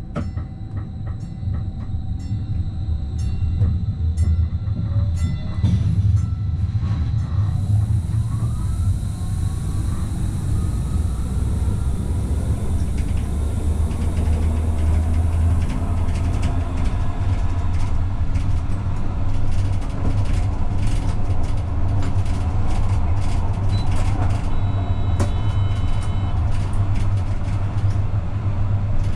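AVG Stadtbahn tram-train accelerating along the line. The traction motor whine rises in pitch over the first several seconds over a steady low running rumble. Later the wheels click repeatedly over the track.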